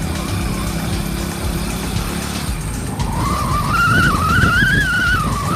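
Car on the move, with a steady rumble of engine and road noise. From about three seconds in, a high tone starts that wavers up and down like a whistle and gets a little louder.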